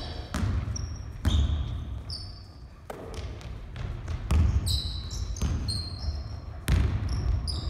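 A basketball bouncing and dribbling on a wooden gym floor in irregular thumps, with many short high squeaks of sneakers on the boards as players cut and stop.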